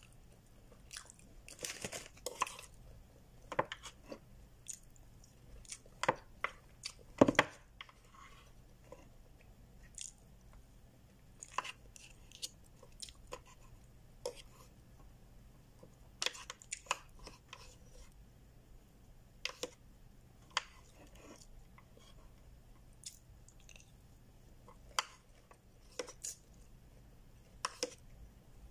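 Eating sounds close to the microphone: chewing and crunching, with scattered short clicks of a plastic spoon and fork against the food container. The loudest cluster comes about seven seconds in.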